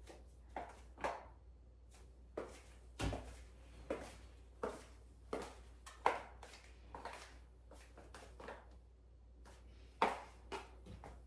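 High-heeled pumps clicking on a ceramic tile floor with each step of a walk, about a step every half second, with a short pause near the end before a couple more steps.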